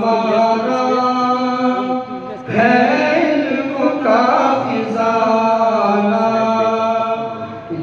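A naat, an Islamic devotional song in Urdu, sung in long held phrases. The singing breaks briefly about two and a half seconds in and again near the end.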